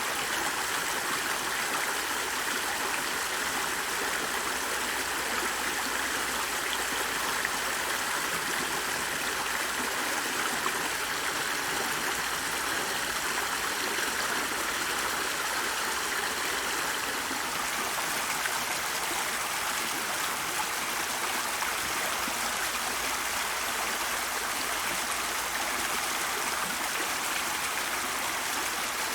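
A stream of running water, flowing steadily and evenly.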